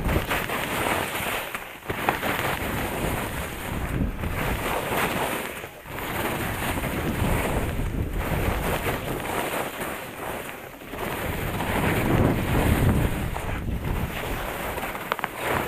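Wind buffeting a skier's camera microphone, mixed with skis scraping over firm, chopped snow through a series of turns. The rushing noise surges and dips briefly every two to three seconds.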